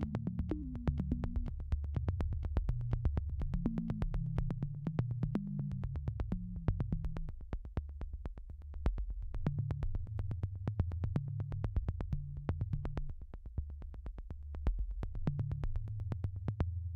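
Electronic background music: a synthesizer bass line moving in steps under a fast, steady ticking beat, starting to fade out near the end.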